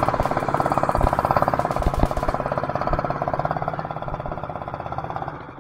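Small air-cooled petrol engine and the belt-driven compressor beside it running steadily, with a fast, even pulsing beat, growing fainter near the end. A few dull knocks sound in the first half.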